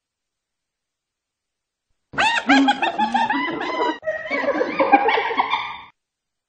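Hyena laughing: a rapid run of short pitched whoops, each rising and falling. It starts abruptly about two seconds in, changes rhythm briefly around the four-second mark, and stops about half a second before the end.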